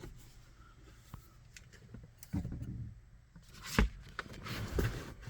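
Scattered clicks and knocks of hands handling plastic car interior trim around the rear-view mirror, with a dull knock a couple of seconds in and a sharper click about four seconds in.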